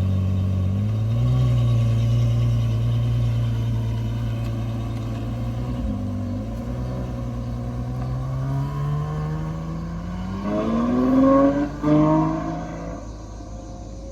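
Ferrari 812 GTS V12 with a Novitec straight-pipe exhaust running steadily at low revs, then pulling away with a rising howl about ten seconds in. There is a short break in the climb near its loudest point, and then the sound fades.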